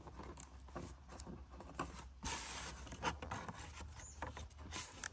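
Thin cereal-box cardboard being pressed, folded and rubbed by hand: faint irregular rubbing and scraping with a few small clicks.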